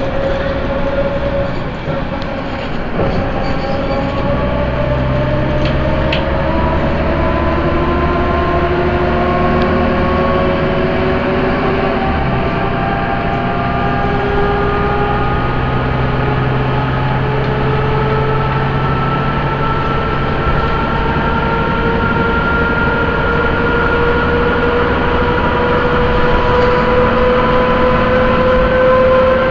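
Inside a Leyland Lynx single-deck bus on the move: steady engine and drivetrain drone with a whine that climbs slowly in pitch as the bus gathers speed, after a brief dip about two seconds in.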